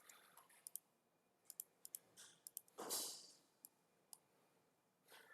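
Faint, scattered clicks of a computer mouse and keyboard as a CAD drawing is worked on, with one brief soft rushing noise about three seconds in.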